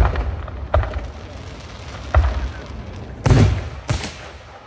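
Aerial firework shells bursting overhead: four sharp booms about a second apart, the one about three seconds in the loudest, each trailing off in a rumble, over the fading rumble of an earlier burst.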